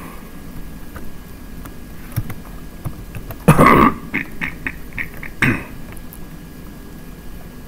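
A man coughing twice: one loud cough about three and a half seconds in and a shorter one about two seconds later. A few light computer keyboard key clicks fall between them.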